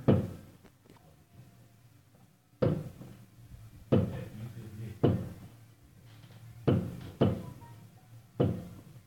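Aerial firework shells bursting: seven sharp bangs at irregular intervals, each trailing off in a short fading echo.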